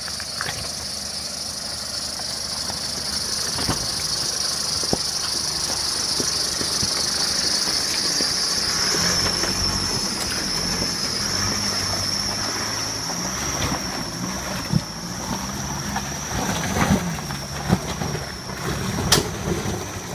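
A Nissan four-wheel drive's engine coming in about halfway and revving up and down hard as it crosses a gully, with several knocks and thumps near the end. Insects buzz in a steady high whine throughout.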